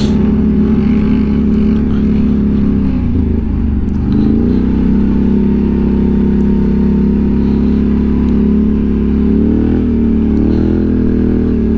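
ATV engine running at steady throttle while riding, its pitch dropping and climbing back about three to four seconds in and wavering briefly near the end.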